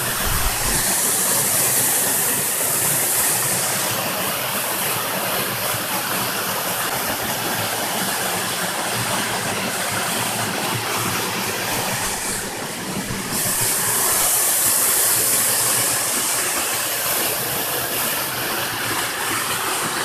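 Millomeris waterfall running steadily: a constant rushing hiss of water falling into its rock pool, briefly duller about twelve seconds in.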